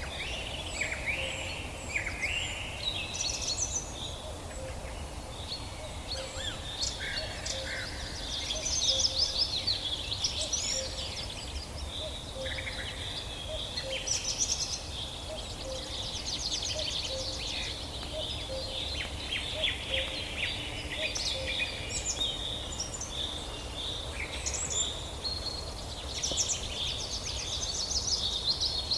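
A chorus of songbirds chirping and trilling, many short calls overlapping throughout, over a low steady rumble.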